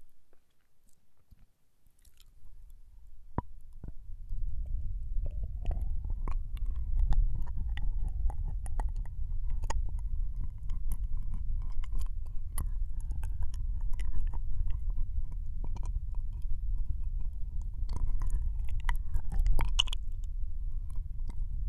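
Ear licking on a binaural microphone's right ear: wet, clicky licks and smacks over a steady low rumble of contact with the mic ear. It starts after about three seconds of near silence.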